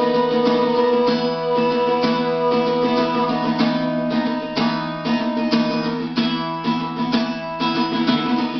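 Acoustic guitar strummed in a steady rhythm, each chord ringing until the next stroke, with no singing over it.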